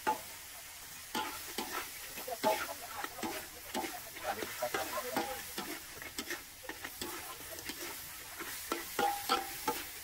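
Irregular clattering and clicking of things being handled, a quick scatter of small knocks and rattles with short gaps, against faint voices in the background.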